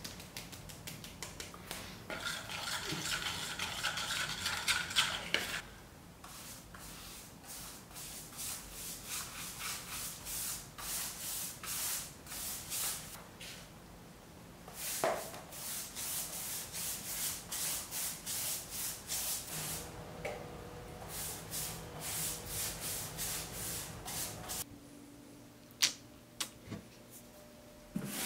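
Sandpaper rubbed by hand back and forth over the back of a whiteboard-material panel to roughen it for gesso, in quick scratchy strokes about two a second that stop and start several times.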